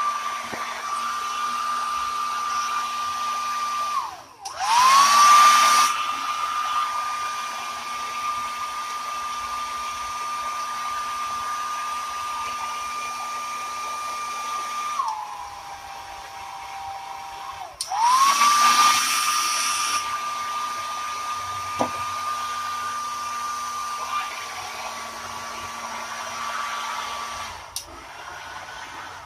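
Philips HP8108 400-watt hair dryer running, its fan motor giving a steady whine over the rush of air. It is switched off about four seconds in and straight back on, spinning up with a rising whine and a loud blast of air, then drops to a lower pitch for a few seconds. It cuts out and spins up again the same way, and switches off near the end.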